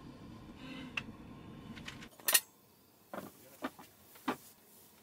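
A steady low background rumble for about two seconds, then a sharp knock as a wooden cutting board is set down on a cloth-covered table, followed by a few lighter clicks and taps of tableware being laid out.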